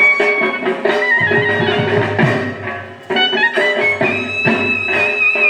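Background music with a plucked guitar line and a beat, starting abruptly after a brief dropout.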